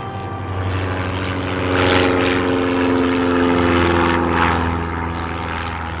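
Light single-engine propeller plane droning overhead, growing louder over the first two seconds and easing off slightly near the end.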